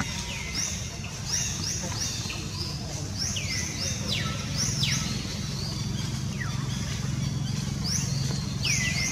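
Repeated thin, whistled bird chirps, each a quick sharp sweep, some falling and some rising, coming in scattered clusters. Under them runs a steady low rumble.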